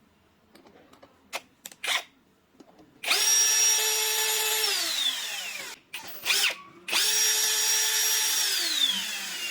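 Small electric power tool run twice at a steady high whine, each run winding down with a falling pitch, cutting an over-long lock mounting screw to length. A few light clicks come before the first run.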